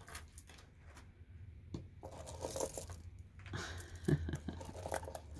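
Turquoise and stone bead necklaces clicking and clinking against each other as they are handled and lifted in a wooden jewelry box drawer, with a stretch of rustling about two to three seconds in.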